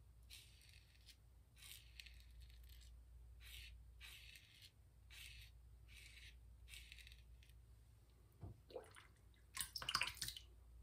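Ever Ready 1914 safety razor scraping through lathered stubble on the neck: a series of short, faint scraping strokes on the third pass. A louder, brief noise comes near the end.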